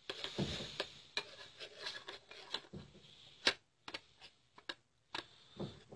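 Spoon and bowl handling: light clicks, ticks and scraping of a spoon against a bowl as rose water is added to gram flour, with one sharper clink about three and a half seconds in.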